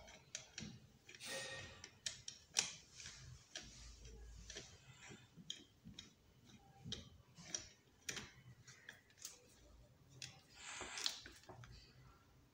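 Screwdriver turning a screw in a Sujata mixer's universal motor frame: irregular small clicks and scrapes of metal on metal, with a couple of brief soft rustles.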